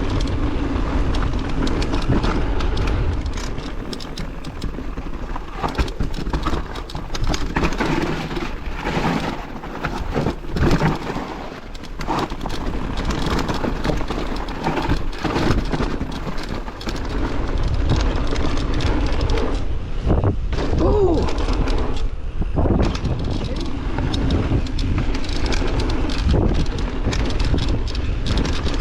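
A bike being ridden, with wind rumbling and buffeting the microphone over the bike's own running noises; the bike is making noises, worn after a long season.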